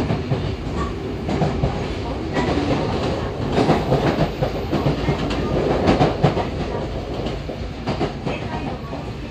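Running noise of a Yokohama Municipal Subway 3000R-series train heard from inside the car: a steady wheel-on-rail rumble, with a run of sharp clicks over the rail joints in the middle, easing off a little near the end.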